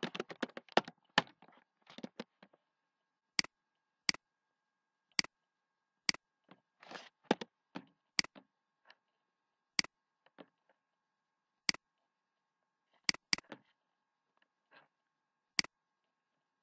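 Computer keyboard typing in a quick run for the first couple of seconds, then single sharp mouse clicks every second or two, two in quick succession near the end, over a faint steady hum.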